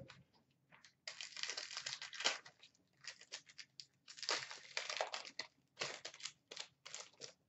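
A 2013-14 Upper Deck Series 1 hockey card pack being torn open by hand, its wrapper crinkling in a run of short rustling bursts as the cards are pulled out.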